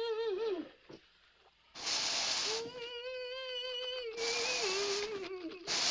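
A high voice humming two long, wavering notes around a thermometer held in the mouth, with short bursts of hissing breath between and after them; the second note sags in pitch near the end.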